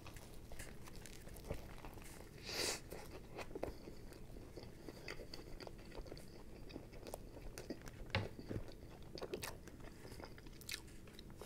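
A man biting into and chewing a fried chicken sandwich, with scattered small crunches. The clearest crunch comes about two and a half seconds in, and a few more come around eight to nine seconds.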